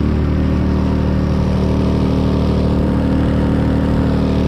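Small motorboat's engine running steadily at cruising speed, a constant drone, with water rushing past the hull and wake.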